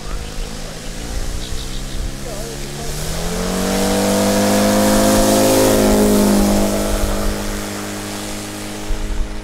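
The engine of a large radio-controlled scale model Fairchild PT-26, opened up for the takeoff run. Its pitch rises about three seconds in and it is loudest as the model rolls past, then steadies and fades a little, with some wind rumble.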